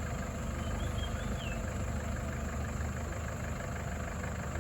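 Vehicle engine idling steadily with a low rumble, typical of a safari jeep stopped at a wildlife sighting. A brief high wavering whistle sounds about a second in.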